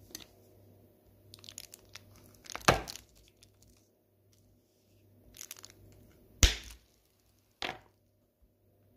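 A knife cutting through Roshen Cherry Queen cherry-liqueur chocolates: light crackling as the blade presses into the hard chocolate shell, then a sharp crack as it snaps through, twice, with a smaller crack near the end.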